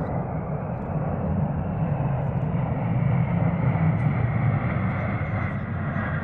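Military aircraft flying past overhead: a steady engine rumble that swells to its loudest about three to four seconds in and then slowly eases off.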